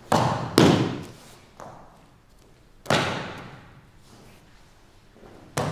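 Bodies landing on the mat as aikido partners are thrown and take breakfalls. Two heavy thuds and slaps come close together at the start, the second the louder. Another comes about three seconds in, and one near the end.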